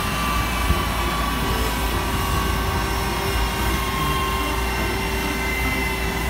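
Wide-body jet airliner's turbines running on the ground: a loud steady rushing hiss over a low rumble, with a thin turbine whine whose pitch sinks slowly.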